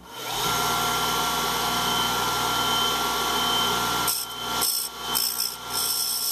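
A bench disc sander's motor starts and comes up to speed within half a second, then runs with a steady hum. From about four seconds in, a brass wire eye is touched lightly to the spinning sanding disc in about four short grinding contacts, flattening it a little.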